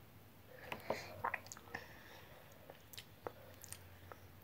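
Faint scattered mouth clicks and small smacks close to the microphone, most of them about a second in and again near three seconds.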